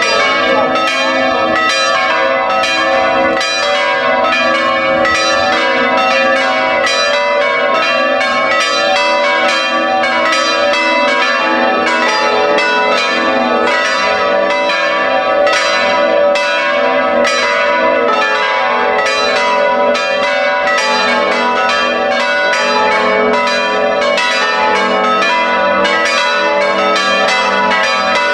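Full peal of a five-bell Italian church ring in A, all bells swinging together, the clappers striking several times a second in a continuous overlapping clangour.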